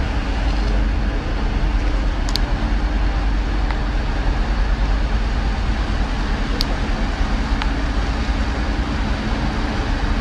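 Large catamaran ferry's engines running and its propulsion churning the water: a steady low rumble with a rushing wash, and two faint clicks partway through.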